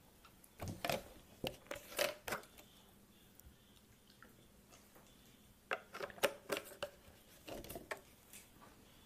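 Handling of a plastic drinking bottle: a cluster of faint clicks and crackles, a quieter stretch, then a second cluster of clicks and crackles near the end.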